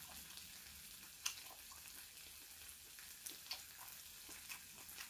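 Marinated webfoot octopus (jjukkumi) sizzling faintly in a frying pan on a Soto camping gas stove, a steady hiss with scattered small pops and crackles.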